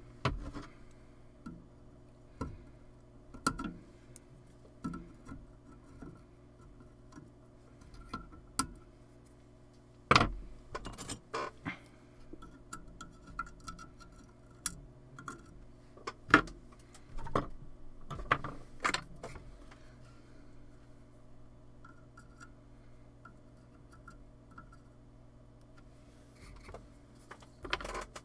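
Scattered small clicks and taps of hand tools, tweezers and pliers, handled against a circuit board and workbench, over a faint steady hum.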